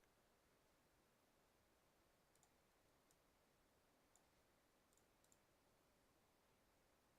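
Near silence, with a handful of faint, short clicks scattered through it.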